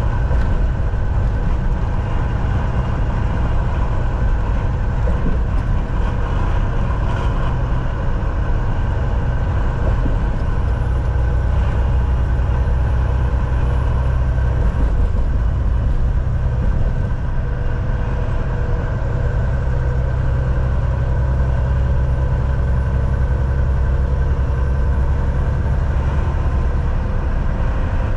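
Semi truck on the move, heard from inside the cab: a steady drone of the diesel engine and road noise with a heavy low rumble, which grows heavier from about ten seconds in.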